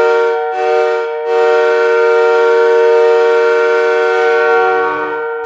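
Ice hockey goal horn sounding several steady notes at once to signal a goal: a blast that stops about half a second in, a short blast, then one long blast of about four seconds.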